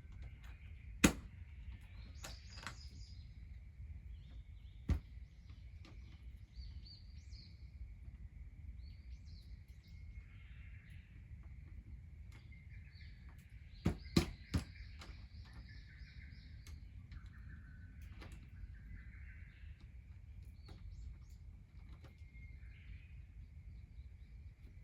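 Wood fire giving a few sharp pops: one about a second in, another near five seconds and three in quick succession around fourteen seconds, over faint bird calls and a steady high-pitched hum.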